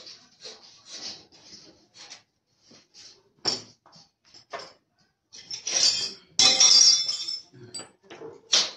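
Metal clicking and clinking from a strapping-clip making machine as the strip is fed forward by hand, with a louder clatter about six to seven seconds in.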